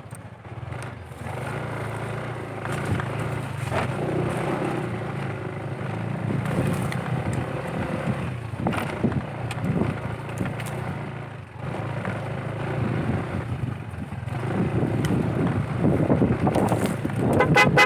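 Motorcycle engine running at low revs over a rough dirt trail, its note uneven, with a few knocks and rattles from the bike along the way.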